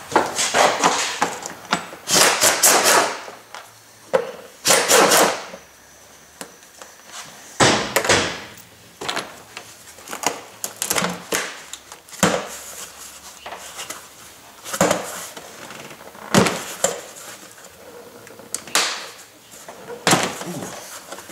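The Nissan Titan's hard-plastic engine appearance cover being unfastened and worked off by hand: irregular knocks, clunks and rattles of plastic, about every one to two seconds, with rustling handling noise between.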